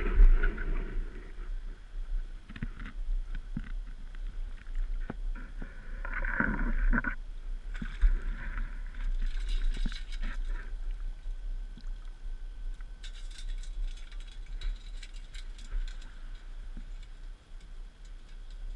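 Sea water sloshing and gurgling around someone wading with a metal detector and sand scoop, with scattered knocks and clicks over a steady low rumble.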